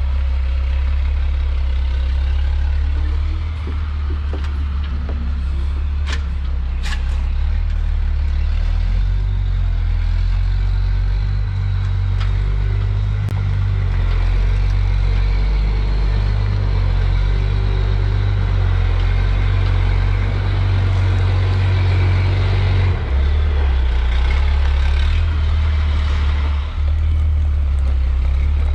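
Heavy equipment engine running steadily with a deep drone whose pitch shifts up and down as it works, with a few sharp clicks around six to seven seconds in.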